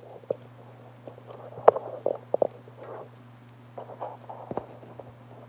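Handling noise at a workbench: scattered light clicks and knocks, several close together about two seconds in and a few more near the end, with rubbing and shuffling between them, over a steady low hum.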